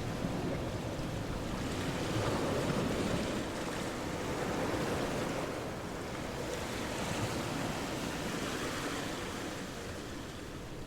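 Rushing surf, a steady wash of noise that swells and eases a few times.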